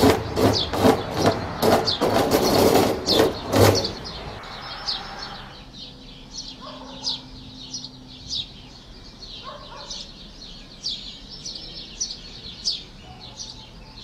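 Hacksaw cutting steel rebar, two to three strokes a second, stopping about four seconds in. After that, small birds chirping: short falling chirps repeated about once a second.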